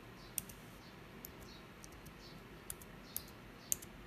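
Computer keyboard keys clicking: about eight separate, sharp key presses spread unevenly over the few seconds as a short G-code command is typed. The last press is the loudest.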